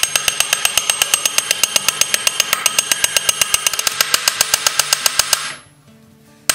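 A small hammer peening rivets, setting them flush in the countersunk holes of an iron plate on a wooden sled runner. The blows come in a rapid, even run of about nine a second, break off about five and a half seconds in, and start again at the very end.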